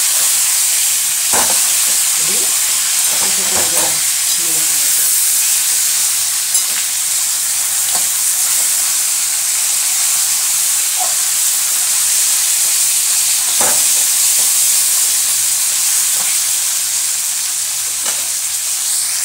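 Fish head frying hard in hot oil in an aluminium kadai: a steady sizzle, broken by a few scrapes and knocks of the spatula as the head is broken up and turned.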